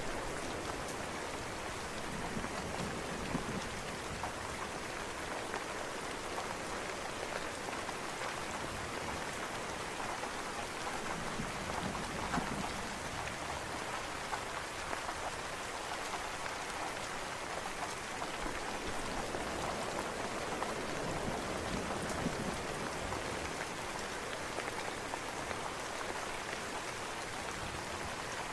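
Steady rain falling: an even hiss of rain on surfaces with scattered individual drops ticking through it.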